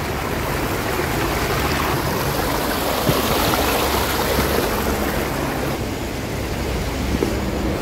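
Steady rushing of a mountain stream, an even, unbroken wash of water noise.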